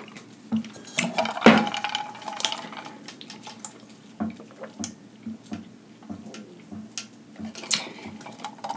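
A person chewing a mouthful of instant ramen noodles close to the microphone: wet mouth sounds and small clicks, in a steady rhythm of roughly two chews a second.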